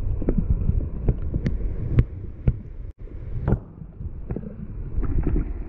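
Creek water heard through a submerged camera: a muffled, low rushing with scattered clicks and knocks. The sound cuts out briefly about three seconds in.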